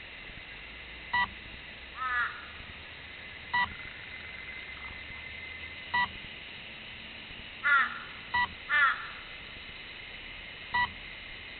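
A short electronic beep repeats about every two and a half seconds, five times, from the beeper of a crashed RC plane lying in the leaves. A bird calls over it: once about two seconds in and twice near eight to nine seconds, the loudest sounds here.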